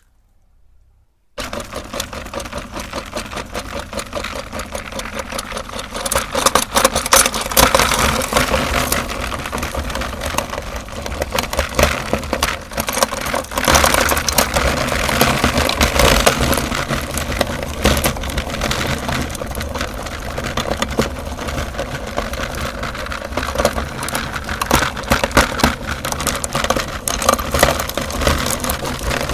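Electric meat grinder switched on about a second in, its motor running with a steady hum. Dense crunching and crackling of chocolate umbrella candies being ground comes in over it, louder from about six seconds in.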